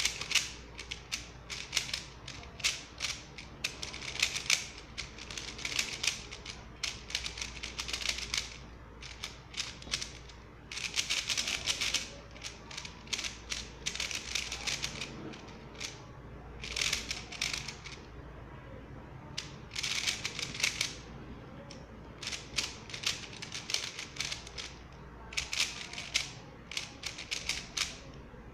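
X-Man Tornado 3x3 speed cube being turned in quick bursts of clacking moves with short pauses between them. The turning noise is quite loud.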